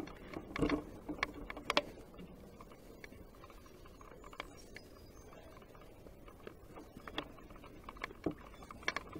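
Footsteps going down steps and onto grass: a few sharp scuffs and knocks in the first two seconds, then sparse, fainter ones.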